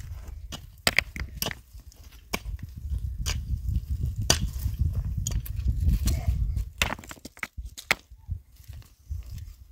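Irregular sharp knocks and cracks, scattered through, over a low rumble that swells in the middle and fades near the end.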